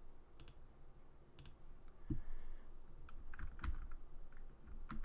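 Faint, irregular clicks and taps of a computer keyboard and mouse, with a couple of duller knocks around two and three and a half seconds in.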